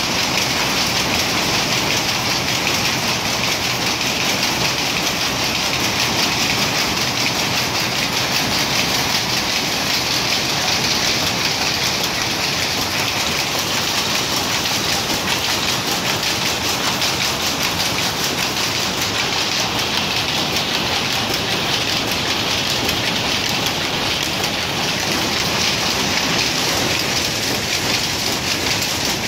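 Power loom running and weaving cloth: a dense, steady, rapid clatter that does not let up.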